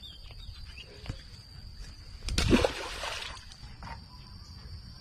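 A bass tossed back into the water: one brief splash about two and a half seconds in.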